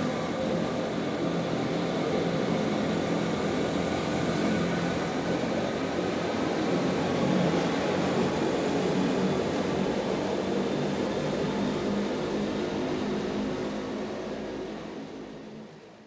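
Wengernalpbahn rack-railway train running, heard from on board: a steady rumble with a hum of several held tones. It fades out near the end.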